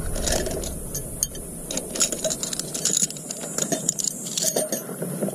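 Light, irregular clicks and rattles of a plastic cooler box and its contents being handled, over a steady high hiss.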